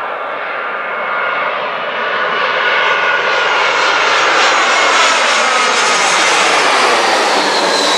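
Twin-engine jet airliner on landing approach passing low overhead. Its engine noise swells over the first few seconds, then holds loud as it passes, with an engine whine gliding down in pitch.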